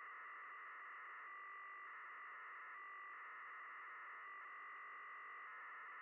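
Data signal of the QO-100 satellite's mid-beacon as heard through an SDR receiver's audio: a steady buzzing band of tones over hiss, its pattern changing briefly a few times, most of all near the end. It carries the AO-40-format BPSK telemetry that the decoder is reading.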